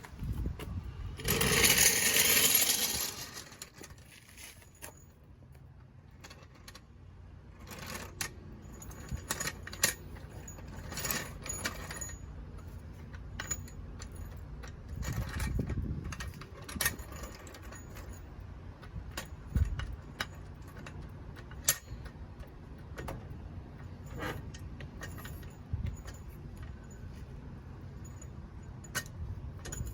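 A metal floor jack being rolled into place and worked under a car. A loud scraping rush comes about a second in, followed by scattered metallic clanks and clicks.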